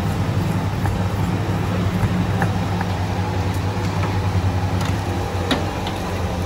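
Steady low mechanical hum, like a running motor or idling traffic, with a few light sharp clinks, around two and a half seconds in and again at about five and a half seconds.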